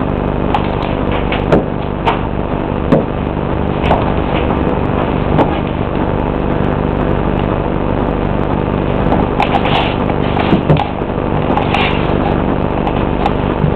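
Hard-toed Bloch pointe shoes knocking and scuffing on a hard floor as the dancer rises, steps and lowers on pointe, giving irregular sharp clicks over a steady hum.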